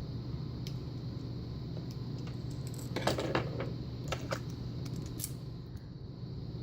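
Small metallic clicks and clinks of a lock cylinder being taken apart with a screwdriver: a quick cluster about three seconds in, a few more around four seconds and a single click near five seconds.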